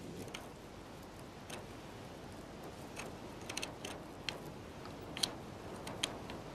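Dry nest sticks clicking and cracking as black eagles (Verreaux's eagles) handle them while building their nest. The clicks come sharp and irregular, bunching in the second half, over a faint steady hiss.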